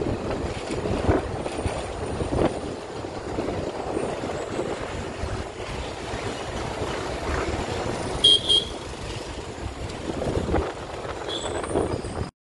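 Motorcycle riding noise in city traffic: wind buffeting the microphone over engine and road rumble. Two short horn beeps sound about eight seconds in, with another brief beep near the end.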